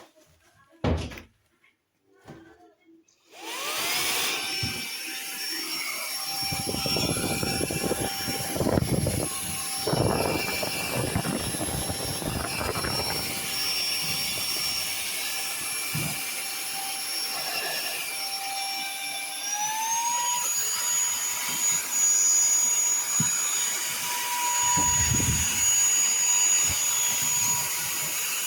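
WADEO cordless handheld vacuum's brushless motor starting up after a click, its whine rising to a steady high pitch, with uneven rushing air noise for several seconds. About two-thirds of the way in its pitch steps up and holds higher: switched to the stronger power setting.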